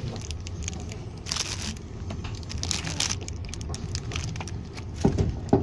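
Plastic food wrappers crinkling and a cardboard snack box being handled, in irregular rustles and crackles, with a couple of louder bumps near the end. Beneath it runs the low steady rumble of the moving train.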